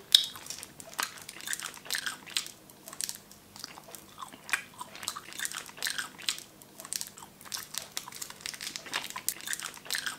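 A person chewing chocolate close to the microphone: repeated crunching bites and wet mouth sounds, with one sharp click right at the start.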